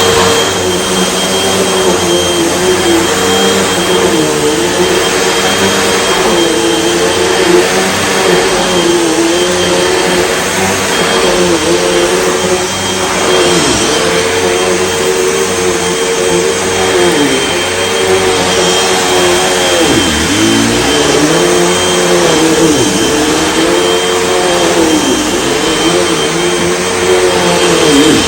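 Hoover Elite Rewind UH71013 bagless upright vacuum cleaner running steadily while cleaning up dust. It gives a constant motor hum with a faint high whine, and in the second half the motor pitch dips briefly every second or two. The owner thinks its belt sounded like it was getting stretched.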